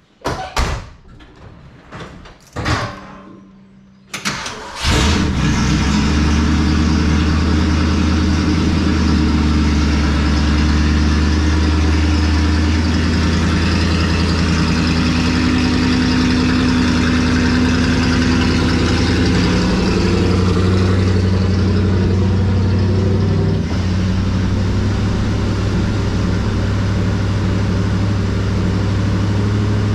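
A few knocks, then the 1974 Ford F-100's 390 FE big-block V8 starts about five seconds in and keeps running steadily, its note shifting slightly now and then. It runs through a split muffler.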